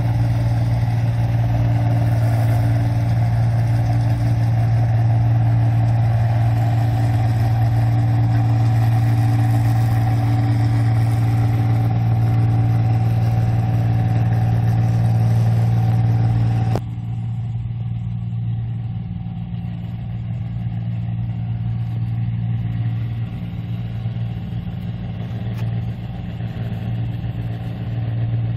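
1545 S rice combine harvester running steadily under harvest load, a constant engine drone with a strong low hum. About two-thirds of the way through it drops suddenly to a quieter, more distant drone.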